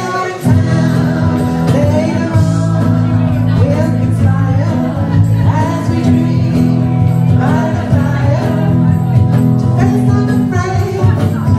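A woman singing live into a microphone over electric guitar accompaniment.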